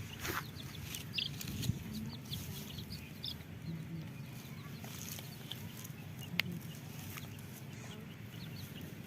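Domestic chicks cheeping, many short high peeps scattered throughout, with a few low clucks from a hen. A single sharp click about six seconds in.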